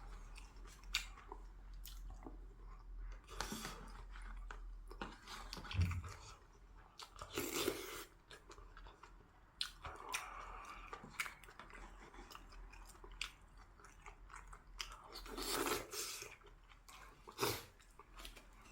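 A person chewing and biting food close to the microphone, with irregular crunches and small clicks and several louder bites spread through.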